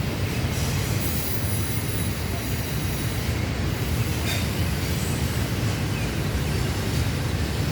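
Norfolk Southern intermodal freight train rolling past with a steady low rumble.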